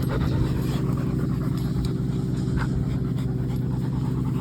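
Wood chipper engine running at a steady drone, with a dog panting close by.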